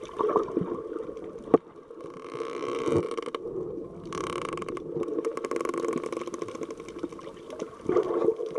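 Muffled underwater sound from a Contour Roam 2 action camera held beneath the surface while snorkeling: a steady drone with water swishing against the housing, two longer rushing hisses, and a couple of sharp knocks about a second and a half and three seconds in.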